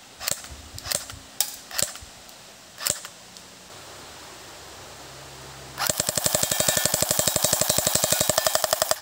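Cyma CM.127 airsoft electric pistol (AEP) firing: five single shots in the first three seconds, then a rapid full-auto burst of about three seconds that cuts off suddenly.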